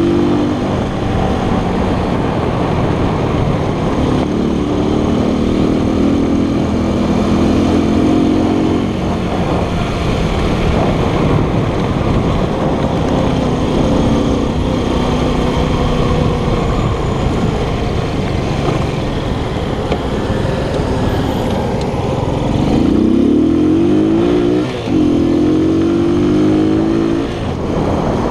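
Keller Crono 110 scooter's small single-cylinder four-stroke engine running under way, with wind and road noise. Near the end the engine pitch climbs steeply as it accelerates, with one brief dip partway through the climb.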